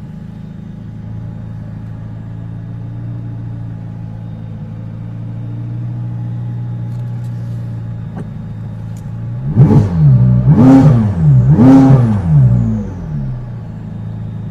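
Supercar engine idling steadily, then blipped three times, about a second apart, each rev rising and falling, before settling back to idle.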